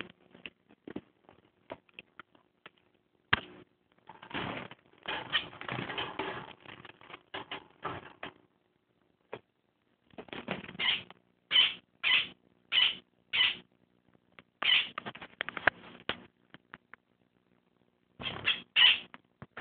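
Scuffling and rustling from a pet finch's wing flaps and movements, mixed with handling noise from a phone being moved about. Partway through comes a run of five short, sharp sounds about half a second apart.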